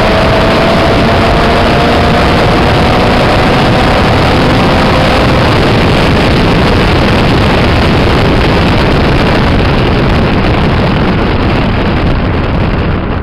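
Nissan Sentra's SR20VE four-cylinder engine under way at speed, a faint tone in its note slowly rising over the first few seconds, buried in a heavy, steady roar of wind on a camera mounted outside the car. The noise eases off near the end.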